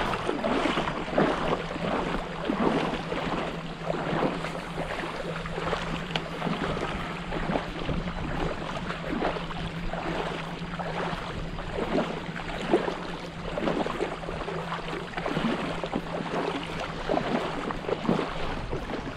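Shallow bay water splashing and sloshing about once every second or less, as someone wades through it, with wind buffeting the microphone.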